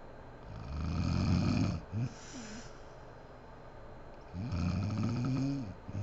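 A sleeping woman snoring, low-pitched: a long snore about half a second in, a brief second snore just after it, then another long snore about four seconds in.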